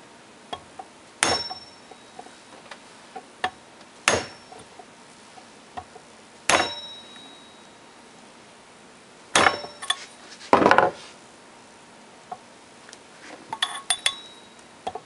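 Tubular driver tool tapping a new 6203ZZ ball bearing down the shaft of a WEG electric motor by its inner race, seating it against the shaft shoulder. About half a dozen sharp metallic taps come two to three seconds apart, each with a short ring.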